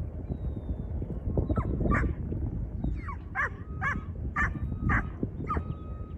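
A dog barking, one or two barks about a second and a half in and then a quicker run of about six barks, over a low steady rumble.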